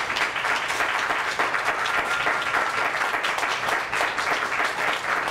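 Audience applauding steadily after a magic trick's finale, a dense even clapping.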